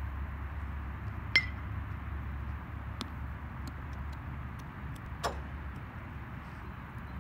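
A metal baseball bat hitting a ball: a sharp ringing ping about a second and a half in and another at the very end, over a steady low hum, with a softer knock partway through.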